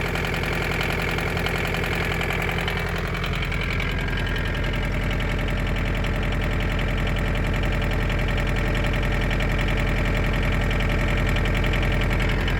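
Isuzu C223 2.2-litre four-cylinder diesel engine of a 1981 Isuzu Pup idling with a steady diesel clatter, heard at the tailpipe of an exhaust the owner calls pretty broken. Its note shifts slightly about three to four seconds in, then runs on evenly.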